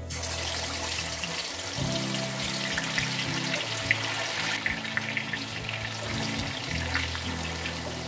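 Marinated chicken pieces deep-frying in hot oil: a steady sizzle full of crackles and pops, starting suddenly as the chicken goes in and easing slightly about halfway.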